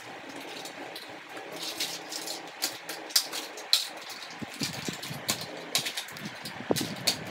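Small plastic toy blocks clattering as they are picked up and dropped into a clear plastic zip pouch: a string of irregular light clicks and rattles.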